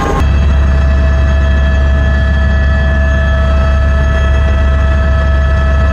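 Helicopter noise heard from inside the cabin: a loud, steady low drone with a few steady whining tones above it.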